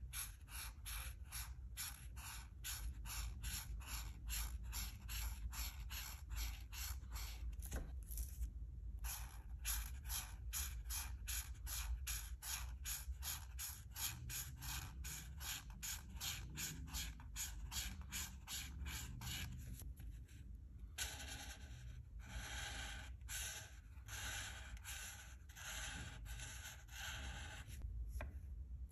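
Alcohol marker nib stroking across paper in quick back-and-forth scratches, about three strokes a second, pausing briefly twice.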